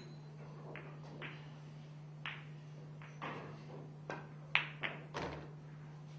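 Pool balls on a pool table: a sharp click about four and a half seconds in as the cue strikes the cue ball, then quick clicks of balls hitting each other and a dull thud from the table. Fainter scattered clicks come before it, over a steady low electrical hum.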